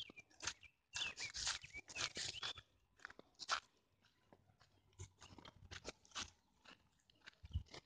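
Footsteps crunching on dry fallen leaves and dirt, in irregular crunches with a quieter stretch midway.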